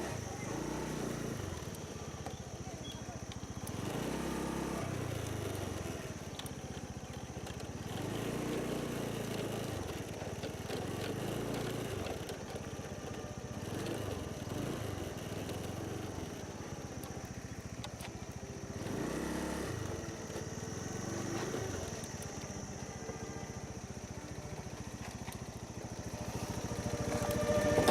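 Small motor scooter engine running on the move, its pitch rising and falling every few seconds as the throttle is opened and eased, with a steady high-pitched whine above it.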